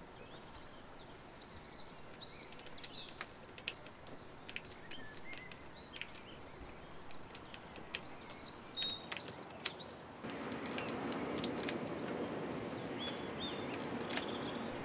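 Scattered small clicks of steel side cutters snipping and handling 2 mm green polyurethane belt as the welded joint is trimmed, with birds chirping in the background. A steady background hiss comes up about ten seconds in.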